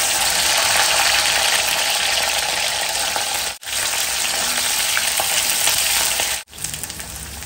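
Okra pieces deep-frying in hot oil, a loud, steady sizzle. It cuts off briefly twice and comes back a little quieter after the second break.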